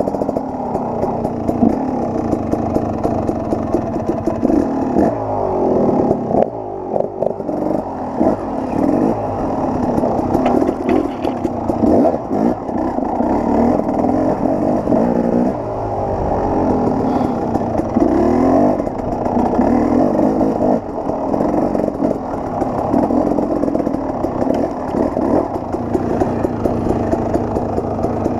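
KTM 300 XC-W's two-stroke single-cylinder engine running under load as the dirt bike climbs a steep trail, its revs dropping and picking up again several times.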